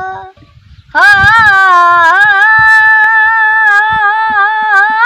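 Singing: a voice holding long, wavering notes, broken off briefly near the start. Irregular low thumps run underneath.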